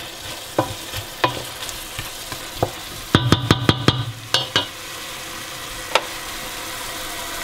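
Wooden spoon stirring beef, onion and tomato frying in a stainless steel pot, over a steady sizzle, with scattered scrapes and knocks against the pot. A little past halfway comes a quick run of about six taps of the spoon on the pot rim that make the pot ring, and near the end a single knock as the spoon is laid across the pot.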